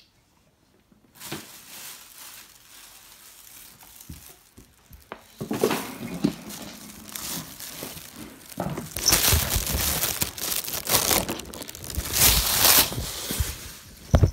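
Clear plastic crinkling and rustling right against the microphone, with handling rubs. It builds up over the middle, is loudest in the second half, and ends with a sharp knock.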